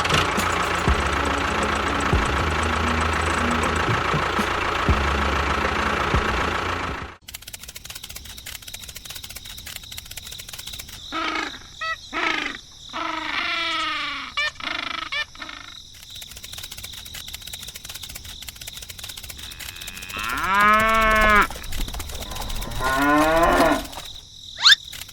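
Music for about the first seven seconds, then cut off. After a quieter stretch come several drawn-out animal calls that rise and fall in pitch, like cattle mooing.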